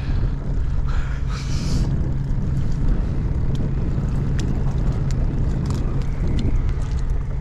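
Outboard motor idling steadily at a constant low pitch, with wind buffeting the microphone and a few faint clicks.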